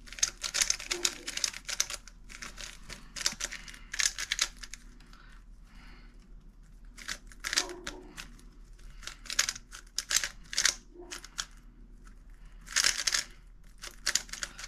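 3x3 plastic speed cube being turned fast by hand, its layers clicking and clacking in quick bursts with short pauses. The cube has just been lubricated and is being broken in.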